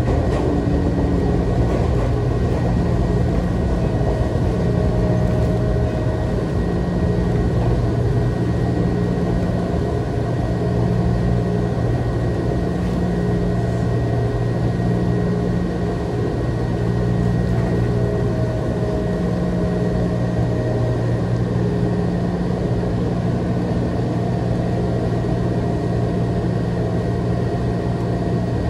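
Interior of an electric commuter train standing at a station: a steady low hum from the onboard equipment that swells and fades about every two seconds, with a faint steady high tone above it.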